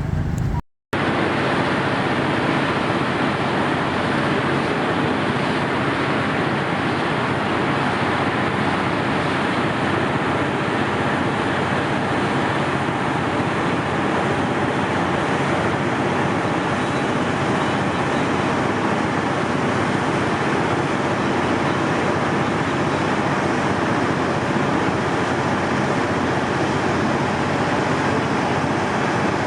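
Steady vehicle noise: a continuous, even rumble and hiss that holds at one level after a brief break about a second in.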